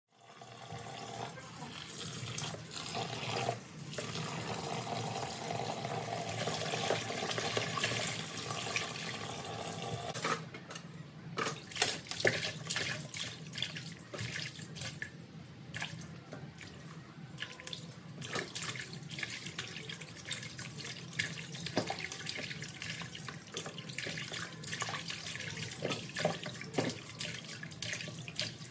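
Water running from a tap into a basin in a sink while leafy greens are washed by hand. The first ten seconds or so are a steady run of water, then it turns into irregular splashing and swishing as the leaves are rubbed and lifted in the water.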